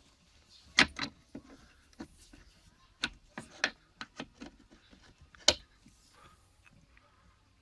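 A run of sharp clicks and knocks, about a dozen in all, from a Citroen Xsara tailgate gas strut and its end fitting on the ball stud being handled. The loudest come about a second in and at about five and a half seconds, with a quick cluster in between.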